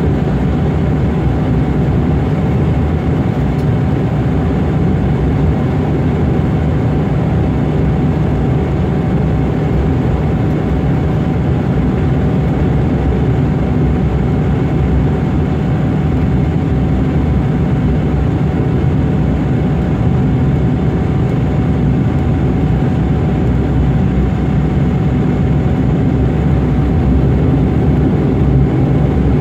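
Aircraft engines running steadily, heard from inside the passenger cabin as the plane taxis: a low rumble with a constant whine through it.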